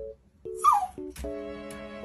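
Background music with a melody of held notes, over which a husky gives a short falling whine about half a second in and again at the end.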